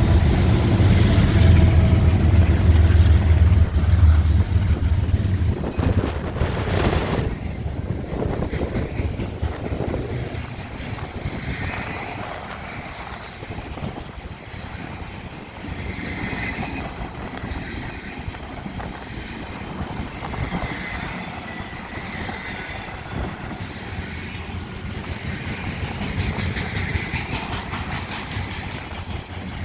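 BNSF GE diesel locomotives (Dash 9-44CW and ES44DC units) passing close, a loud low engine rumble for about the first five seconds. Then the intermodal train's cars rolling past with a steady rumble and clatter of wheels on rail, and faint wheel squeals now and then.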